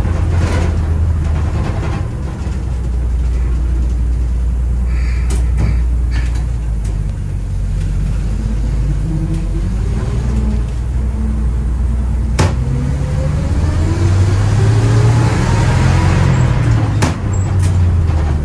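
The 1955 Gillig school bus's engine and drivetrain heard from inside the cab while driving: a steady low rumble whose pitch climbs twice in the second half. A few sharp knocks come through the body along the way.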